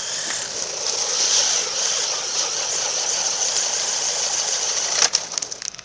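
Electric radio-controlled truck running on asphalt: a steady high hiss that builds over the first second and holds. A few sharp clicks about five seconds in.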